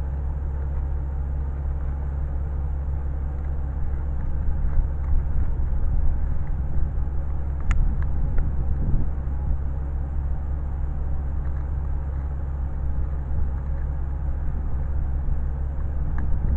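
Steady low mechanical rumble, like an engine running, with a single sharp click about eight seconds in.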